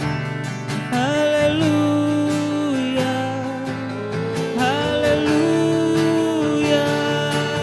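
Two acoustic guitars strummed steadily under male voices singing a slow worship song in long, held notes that slide between pitches.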